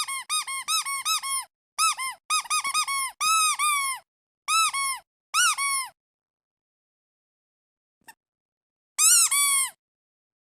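Squeaky duck toy squeezed again and again, giving quick runs of short squeaks, each rising then falling in pitch. It stops about six seconds in, then squeaks three more times near the end.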